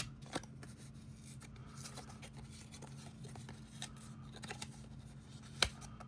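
Cardstock pieces being handled and set down: light paper rustles and small taps, with a sharp tap about half a second in and a louder one near the end. A steady low hum runs underneath.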